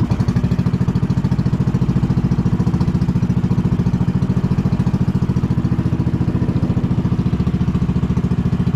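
Small outrigger boat's engine running steadily, with a fast, even low pulse.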